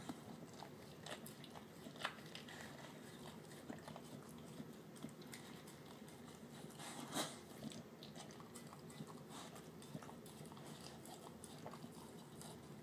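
Terrier-mix dog eating canned wet food mixed with kibble from a glass dish: faint wet chewing and licking with scattered sharp clicks, the loudest about seven seconds in.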